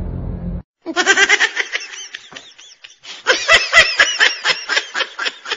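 Music cuts off, then high-pitched laughter comes in quick bursts: a first run about a second in, and a faster, louder run of short bursts from about three seconds in.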